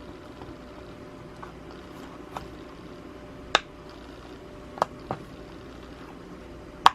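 About five sharp, irregularly spaced clicks from a silicone dimple pop fidget toy being handled and its dimples pressed, over a low steady room hum.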